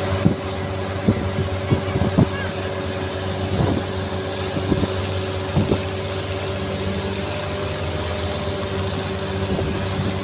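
Longtail boat's engine running steadily under way, with a few short knocks scattered through.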